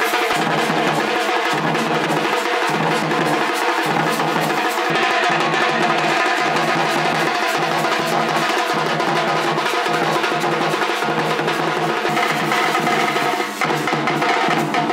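Folk drum troupe playing together: small stick-struck side drums rattling fast over large frame drums beaten with sticks, in a steady, driving rhythm.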